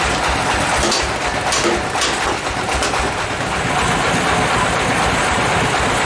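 Band sawmill's engine running steadily with a rhythmic low pulsing, and several sharp knocks in the first three seconds as the log is shifted on the carriage.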